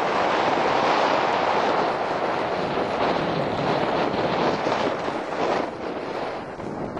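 Steady rushing noise of a 4x4 driving along a snow-covered road, mixed with wind buffeting the microphone, easing slightly near the end.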